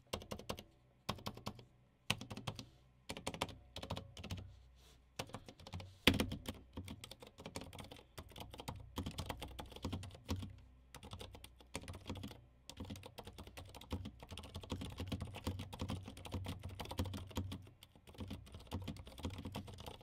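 IQunix L80 mechanical keyboard with Cherry MX Silent Red switches being typed on steadily: a quiet, irregular stream of keystrokes, with one louder stroke about six seconds in.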